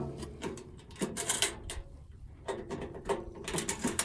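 Metal toolbox drawers being pulled open and handled: a run of clicks, knocks and metal clatter.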